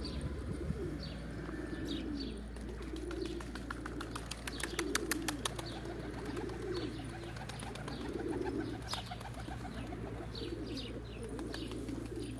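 A flock of Van pigeons cooing continuously in low, rolling coos. Around five seconds in a pigeon takes off with a quick run of wing claps. Short high chirps sound on and off above the coos.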